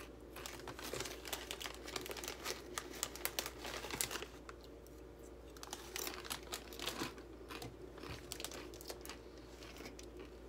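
Faint handling noises of makeup products being picked up and used: irregular crinkling rustles and small clicks, busiest in the first few seconds and again in the middle, over a low steady hum.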